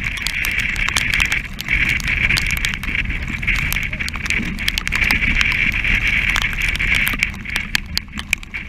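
Strong wind buffeting the microphone on the deck of a heeled sailing yacht in rough seas. A low rumble runs under a hissing rush that drops away briefly a few times. Spray and water drops spatter against the camera in many quick taps, thickest near the end.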